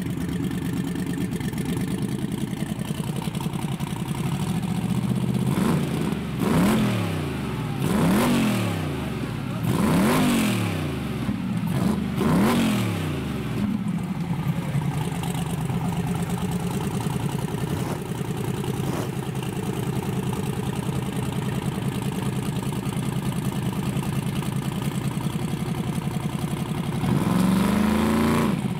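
Turbocharged drag-race engines idling with an even, choppy beat. One is blipped four times in quick succession, each rev rising and falling back, then revved once more near the end.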